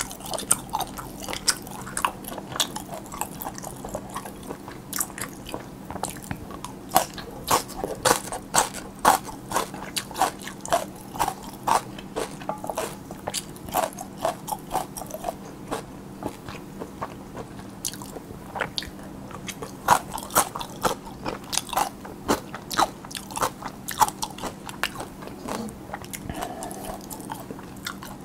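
Close-miked eating of spicy cold noodles with young radish kimchi, cucumber and whelk, and a pan-fried dumpling: a steady run of crisp crunches and wet mouth clicks while chewing. The crunching is thickest about a third of the way in and again about two thirds through.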